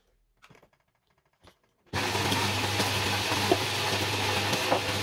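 Siemens EQ.5 coffee machine's vibratory water pump running steadily with a low hum, freshly repaired and pumping water through to the spout. It starts about two seconds in after a few faint clicks and cuts off suddenly about three seconds later.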